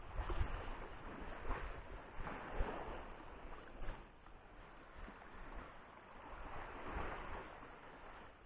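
Shallow sea water lapping and sloshing in uneven swells, with wind rumbling on the microphone.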